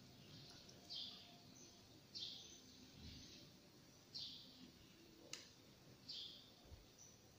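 A bird chirping faintly and repeatedly, one short high call about every second. A single sharp click sounds about two-thirds of the way through.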